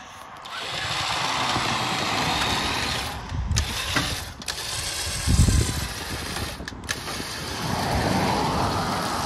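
A winch running and pulling on a line hooked to an old Ford truck stuck in a ditch, a steady mechanical whir that cuts out briefly a few times, with a few low knocks.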